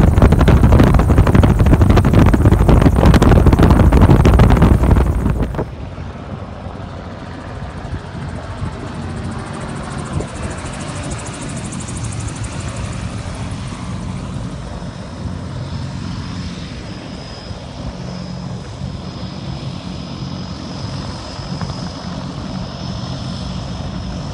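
For about five seconds, loud wind buffeting and engine noise aboard a gyrocopter in flight. It then gives way abruptly to the quieter, steady drone of the gyrocopter's engine and pusher propeller heard from the ground as it flies past, with a thin high whine joining in about halfway through.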